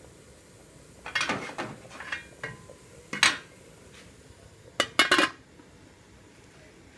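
Aluminium pot lid clattering: several sharp metallic clanks as it is handled, ending with a quick double clank as the lid is set onto the pot about five seconds in.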